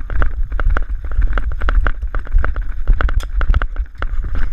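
Running footsteps with gear jostling, a quick even beat of about three to four strides a second, over heavy wind and handling rumble on the body-mounted action-camera microphone.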